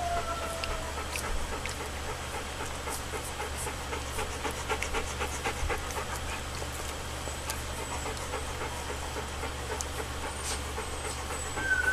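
Alaskan Malamute puppies about two and a half weeks old suckling at their mother: a run of small smacking clicks, with a thin falling whimper in the first second and a short high squeak near the end, over a steady low hum.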